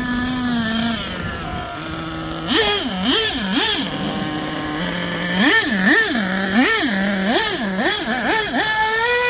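Savage X 4.6 Big Block nitro engine revving in quick blips from a low idle, three and then about seven in a row, settling on a higher steady pitch near the end. The engine runs but still needs minor carb adjustments, and its clutch pad is burnt off, so the spur gear slips and the car lacks acceleration.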